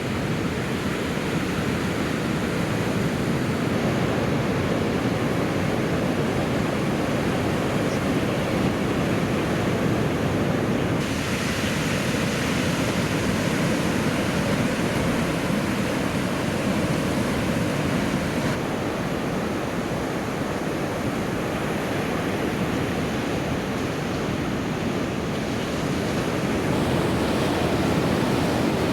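Steady rush of breaking surf with wind on the microphone. The hiss changes abruptly in brightness about 11 seconds in and again near 18 seconds.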